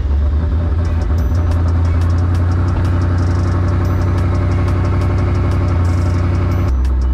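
Twin-turbocharged Mustang Boss 302 5.0 V8 idling high and steady just after being started, its idle stepping down to a lower note near the end.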